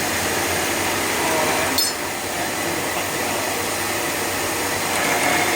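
Grinding and polishing machine working 8 mm stainless steel, running with a steady noisy hiss, and a brief sharp clink a little under two seconds in.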